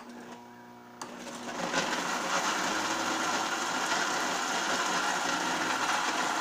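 Electric blender motor starting with a steady whine, then about a second in growing louder and rougher as the blades break up ice cubes in milk, cold coffee and cocoa, and running on at full blend.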